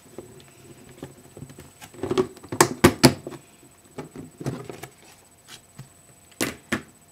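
Handling noise: a series of sharp knocks and clatters as things are moved about close to the microphone, with a cluster of four loud knocks about two to three seconds in and another loud knock near the end.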